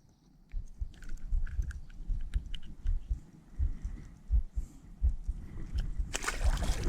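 Irregular low thumps and small clicks of a just-landed small bass being handled and unhooked close to the microphone, with a brief rushing rustle near the end.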